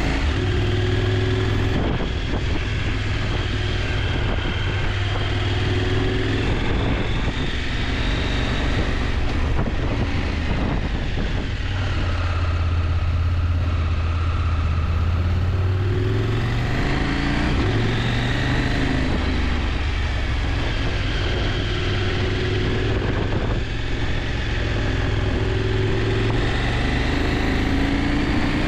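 Motorcycle engine running steadily at low road speed, the revs rising and falling several times with the throttle.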